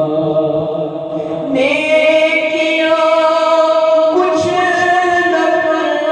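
Unaccompanied devotional singing of an Urdu farewell-to-Ramadan naat, several layered voices in long held, drawn-out notes. A new, louder note begins about a second and a half in and shifts about four seconds in.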